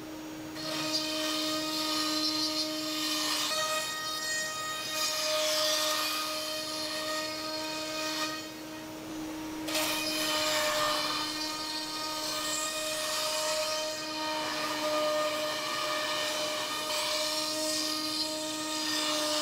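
HSD spindle of a CNC router whining at a steady pitch while the bit routes pre-finished maple plywood. A rising and falling cutting hiss comes and goes over the whine, dropping out for about a second midway.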